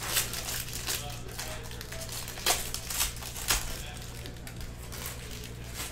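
Foil trading-card pack wrapper crinkling as it is torn open by hand, with two sharp crackles about two and a half and three and a half seconds in.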